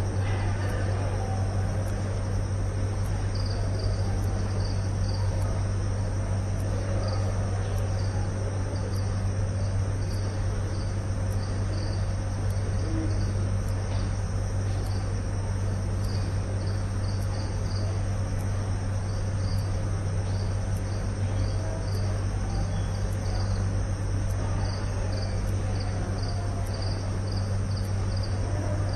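Steady low hum, with faint short high chirps repeating about once or twice a second over it.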